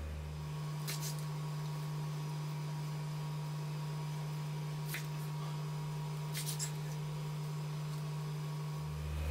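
Kitchen knife cutting bok choy on a wooden cutting board: a few sharp knocks of the blade on the board, about a second in, at about five seconds and twice close together near six and a half seconds, over a steady low hum.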